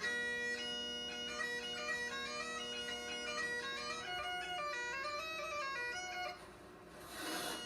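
Bagpipes playing a tune over their steady drone. The piping dips briefly near the end under a short breathy hiss, then carries on.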